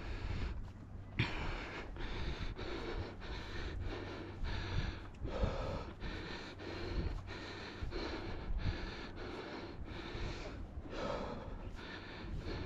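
A hiker's heavy huffing and puffing through a face mask, a quick, even run of breaths, from the hard exertion of climbing very steep stair steps.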